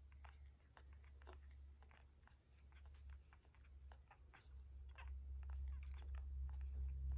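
Three-day-old dachshund puppies nursing: faint, irregular wet smacking and clicking of suckling. Under it a low hum grows louder from about halfway through.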